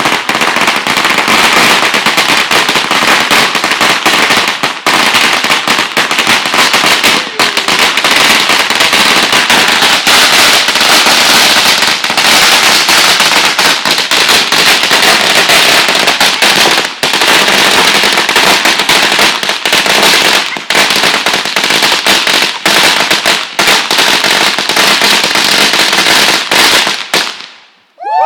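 A huge batch of firecrackers going off in a loud, dense, unbroken rapid crackle that dies away about a second before the end.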